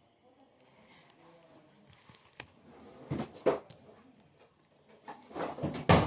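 Close handling noises: two clusters of knocks and rustles, about three seconds in and again near the end.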